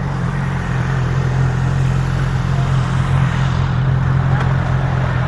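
Motorcycle engine idling steadily, a constant low hum heard close up through a helmet-mounted camera.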